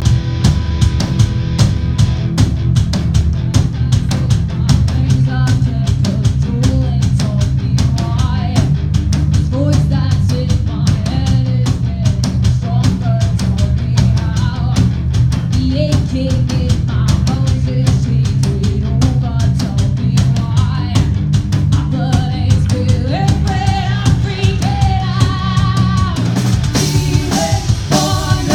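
Rock band playing live on stage: a dense, driving drum kit with bass and electric guitar, and a wavering melodic line over them from about five seconds in.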